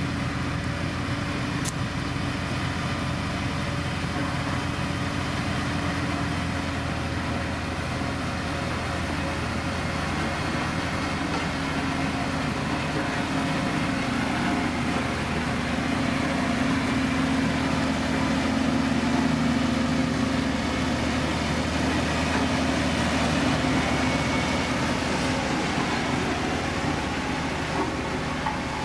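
Diesel engine of heavy road-building machinery running steadily, growing a little louder past the middle.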